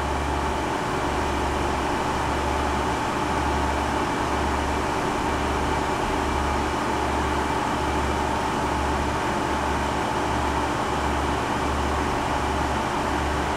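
Chevalier CG-1440A cylindrical grinder running in its automatic plunge cycle, the wheelhead fast-feeding toward the work: a steady machine hum with a low throb pulsing a little more than once a second.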